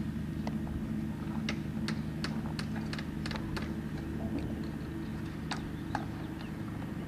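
Hand hammering on a building under construction: sharp, irregular knocks, with a quick run of blows a few seconds in, over a steady low hum.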